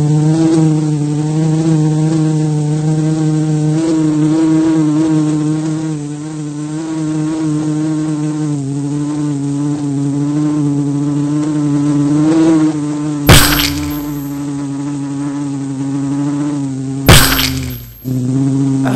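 A fly's buzzing drones on continuously, its pitch wavering slightly. Two sharp knocks cut through it, about 13 and 17 seconds in, and the buzz breaks off briefly after the second before starting again.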